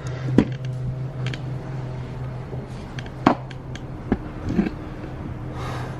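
A few scattered knocks and taps from someone moving about, over a steady low hum.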